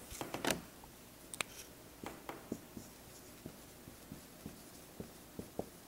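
Dry-erase marker writing on a whiteboard: a string of short, irregular squeaks and taps as the letters are stroked out.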